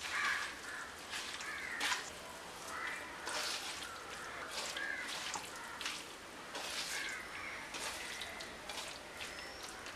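Hand kneading raw anchovies into a wet crushed-coconut mixture in a clay chatti: short squelches and scrapes, with a bird calling several times in the background.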